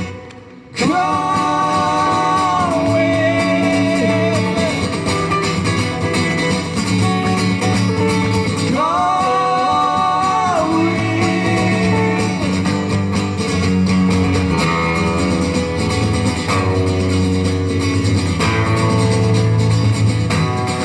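Live band playing a song: guitar and bass with a voice holding long notes twice, after a short break in the music right at the start.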